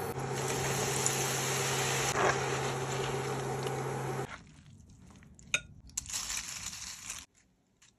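Pita pieces deep-frying in oil: a steady sizzle with a low hum under it, which cuts off abruptly after about four seconds. A quieter stretch follows, with a couple of sharp clicks and a brief crisp rustle as fried pita chips are dropped onto the salad.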